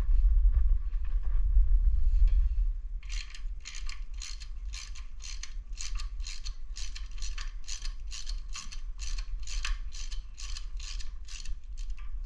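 Ratchet wrench clicking steadily, about three clicks a second, as it backs out the impeller housing bolts on an outboard lower unit. Before the clicking starts, about three seconds in, there is a low rumble.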